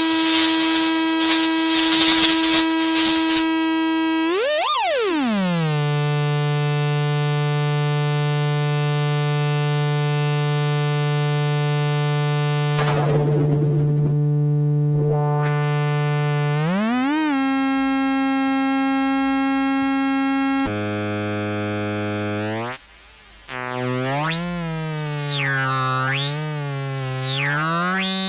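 MFOS Weird Sound Generator synthesizer droning on buzzy held pitches that swoop to new pitches several times. It opens with a crackly chirping over the drone, turns noisy for a couple of seconds about halfway, cuts out briefly, then warbles up and down near the end.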